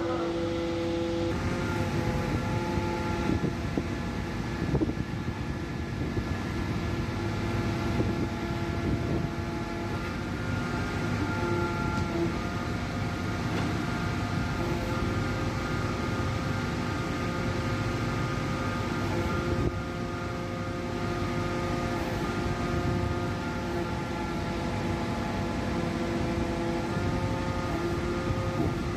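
Hydraulic static pile driver's engine and hydraulic power pack running steadily: an even rumble under a held whine of several pitches that shifts slightly now and then.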